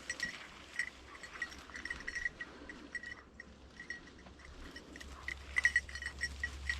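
A bell on a hunting dog's collar jingling in quick, irregular rings as the dog works through cover, over faint rustling.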